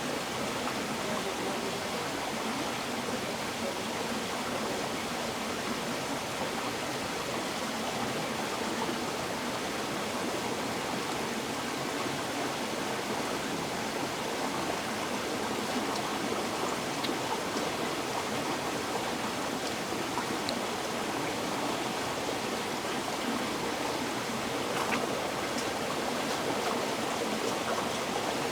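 River water flowing steadily over rocks, a continuous rushing babble with no let-up.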